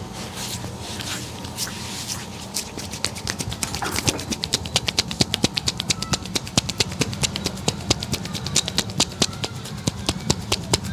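A barber's hands slapping and tapping a customer's head in a percussive head massage: a fast, even run of sharp slaps, several a second, starting about two to three seconds in and getting louder, over steady background noise.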